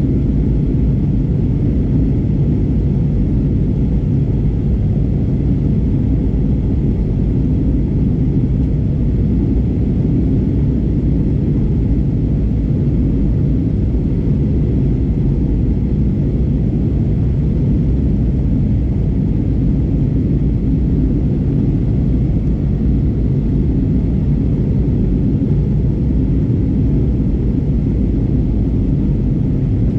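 Steady cabin drone of an Airbus A320neo airliner heard from a window seat: engine and airflow noise, a low rumble that holds constant throughout.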